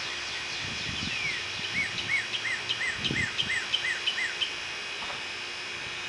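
A bird singing a quick run of about eight short, rising-and-falling notes, about three a second, from a little under two seconds in until about halfway through, over a steady high insect chorus.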